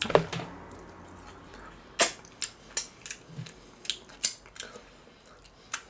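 Crisp cracks and crunches of KFC fried chicken being torn from the bucket and chewed: one sharp crack at the start, then about a dozen short crunches over the last four seconds.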